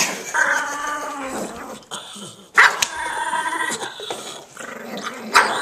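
Chihuahua-type dog growling in long, drawn-out, pitched calls that sound like Chewbacca: an annoyed growl. There are two long calls, the second starting sharply, and another sharp one near the end.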